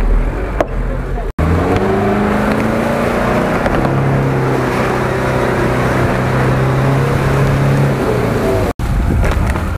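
Engine of a snorkelled 4x4 SUV running hard at steady high revs as it drives through deep mud, tyres churning and throwing mud. The sound cuts out abruptly for an instant about a second in and again near the end.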